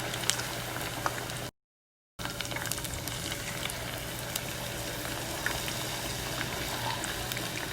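Chicken wings in a flour-and-cornstarch batter deep-frying in hot cooking oil: a steady sizzle with scattered small pops and crackles. The sound cuts out completely for under a second about one and a half seconds in.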